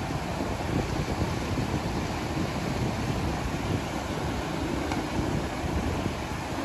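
Steady rush of a shallow, rocky mountain stream, with wind buffeting the microphone.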